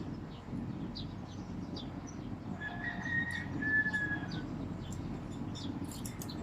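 A high whistled call, two drawn-out notes back to back about three seconds in, over a steady low background rumble, with a few faint clicks.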